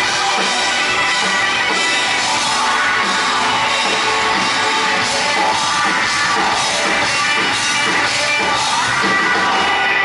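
Live rock band playing loud, with electric guitar over a steady drum beat.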